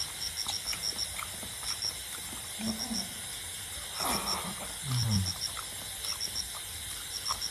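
Mouth sounds of a man eating rice and curry by hand: chewing, a short slurp about four seconds in, and a few low murmurs that fall in pitch. Behind them, crickets chirp steadily in quick groups of four or five pulses.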